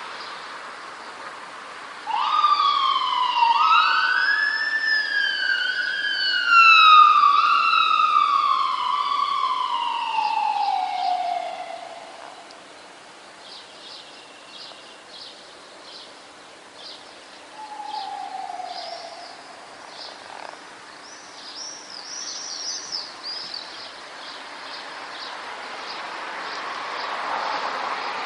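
An emergency vehicle siren wails, cutting in suddenly about two seconds in, rising, wavering, then sliding steadily down in pitch until it fades out around the middle. After it, swallows twitter in short high chirps, with one brief falling siren note among them.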